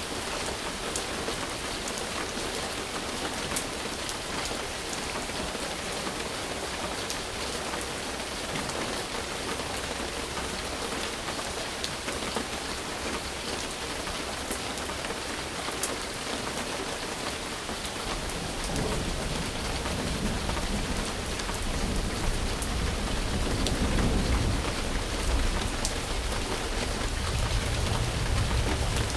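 Steady rain falling, a dense even hiss of drops on surfaces. About two-thirds of the way in, a low rolling rumble of thunder builds in and grows louder near the end.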